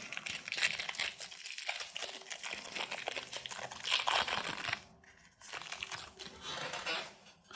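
Packaging of a trading-card blister pack crinkling and tearing as it is opened by hand, dense and crackly, with a short pause about five seconds in.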